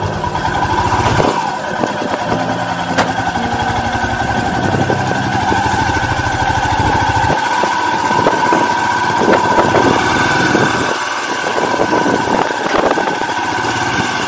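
Motorcycle engine running on the move, its low note coming and going several times, with scattered short knocks.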